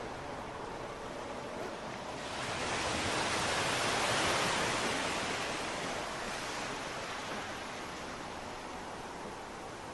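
Steady rushing noise that swells about two seconds in, peaks, then slowly eases off.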